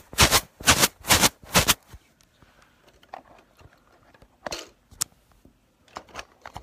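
Handling noise from a smartphone being fumbled and adjusted while it records: four loud scraping bumps against the microphone, about two a second, in the first two seconds, then scattered quieter clicks and taps.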